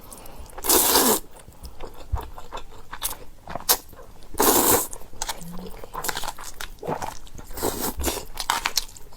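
Close-miked eating of pasta: steady chewing with small wet clicks, and about three louder noisy bursts of half a second each as mouthfuls are taken.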